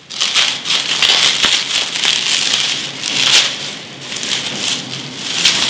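Clear plastic wrapping crinkling and crackling as it is handled and pulled off an iron pipe lamp leg, coming and going in uneven waves.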